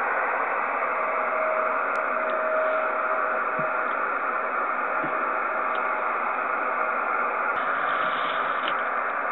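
Radio receiver hiss with a steady whistling tone that fades in and out. The tone is the 49.750 MHz carrier of a distant TV station reflected off meteor trails, with a few faint short blips.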